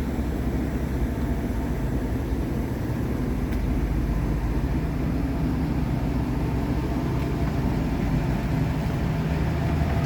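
Rear-mounted natural-gas (CNG) engine of a 2007 Blue Bird All American school bus idling steadily with a low, even hum.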